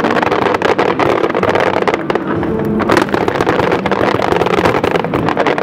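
Fireworks going off in rapid succession, a dense run of cracks and bangs with no pause.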